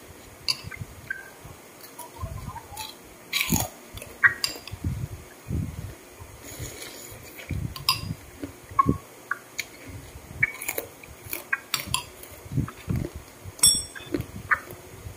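A person chewing and eating meatball soup with sweet corn, in irregular mouthfuls, with a few sharp clinks of a metal spoon against the bowl, one near the end ringing briefly.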